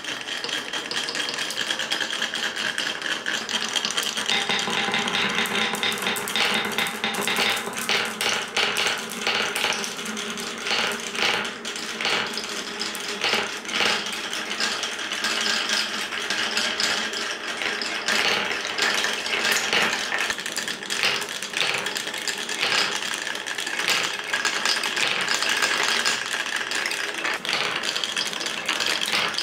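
Many glass marbles rolling down a wooden block marble run: a continuous dense clatter of small clicks and knocks as they rattle over wavy track sections, whirl around a funnel bowl and click against each other and the wood.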